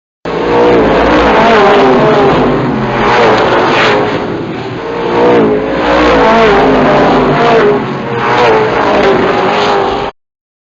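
Stock car racing engines running hard at high revs, their pitch repeatedly rising and falling. The sound starts abruptly and cuts off suddenly near the end.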